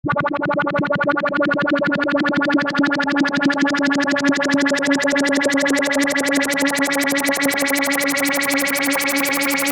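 Ableton Drift synthesizer preset sounding one held note that starts abruptly, pulsing rapidly and evenly, and growing steadily brighter as its filter opens.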